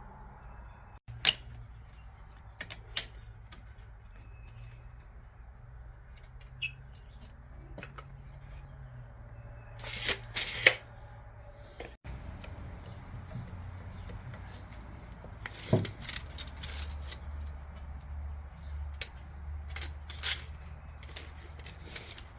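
Scattered sharp clicks and knocks, like tools and metal being handled, over a steady low hum, with a quick cluster of knocks about ten seconds in.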